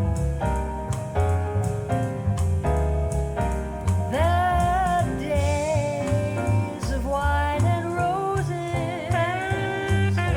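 A jazz recording played through JBL 4307 studio monitor loudspeakers. Piano chords move over a stepping bass line, and a lead melody line with wavering pitch enters about four seconds in.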